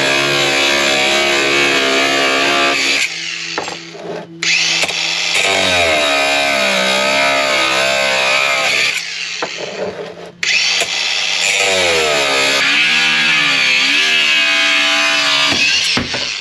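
Angle grinder with a cut-off disc cutting through threaded steel bar: three long cuts with short pauses between, the motor's whine wavering and sagging in pitch as the disc bites into the metal.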